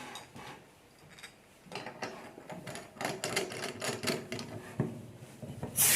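Small metal clicks and scraping as a gas cartridge holder is screwed onto a stainless steel mini coffee keg, then a sudden loud hiss near the end as the charger is pierced and gas rushes into the keg.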